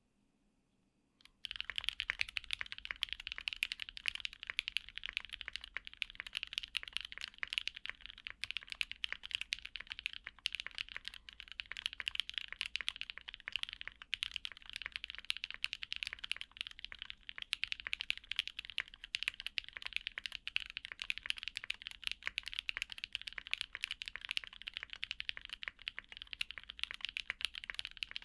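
Fast, continuous typing on a Singa x TGR Unikorn R2.1 60% custom mechanical keyboard, built with lubed retooled black linear switches, an aluminum plate and PBT keycaps. The keystrokes start about a second in and do not let up.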